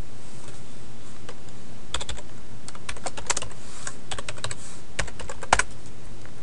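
Typing on a computer keyboard: a quick run of keystrokes starting about two seconds in and ending shortly before the end.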